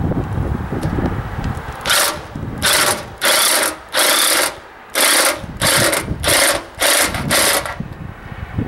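Corded drill run in about nine short bursts, driving a 1/4-inch concrete screw through the metal chimney flashing into the masonry. Wind rumbles on the microphone before the first burst.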